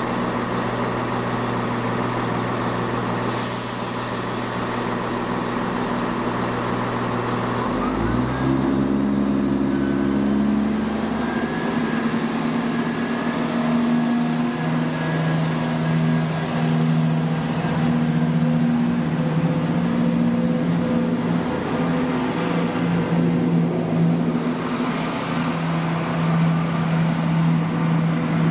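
A train's traction running steadily with a deep hum. About eight seconds in its note shifts up to a higher steady hum, and a faint high whine rises soon after.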